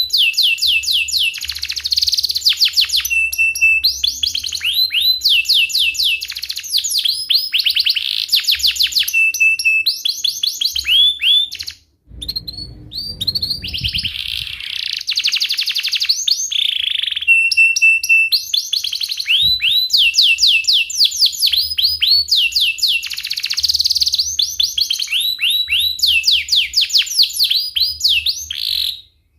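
Domestic canary singing a long song of rapid rolling trills of quick falling notes, mixed with chirps and a few held whistles. It breaks off briefly about twelve seconds in.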